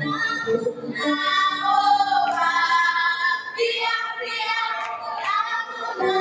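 A group of children singing together in high voices, with notes held about a second each.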